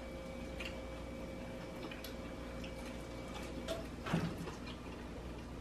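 Faint clicks and smacks of people eating chicken wings, over a thin steady hum that stops a little before four seconds in. A brief louder sound comes a little after four seconds.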